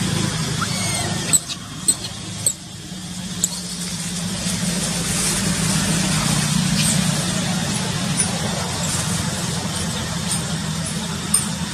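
A steady low hum with a hiss above it, and a few sharp clicks in the first few seconds.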